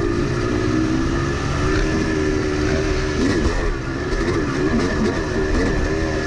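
Yamaha YZ250 two-stroke dirt bike engine running as it is ridden, heard from on the bike; its pitch holds steady, wavers up and down for a few seconds in the middle, then settles again.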